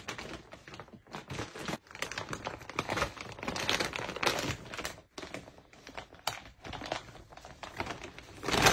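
Plastic dog food bag crinkling and rustling in irregular bursts as a basset hound noses around inside it after the last crumbs, with a louder burst near the end.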